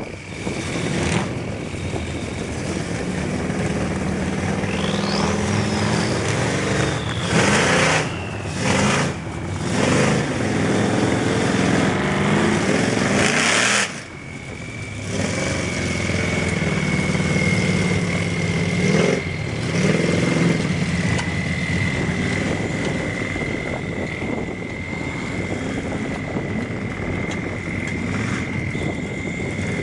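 Lifted square-body GMC pickup on big mud tires running through a mud pit, its engine revving up and down with short bursts of splashing water and mud. A steady high whine runs underneath.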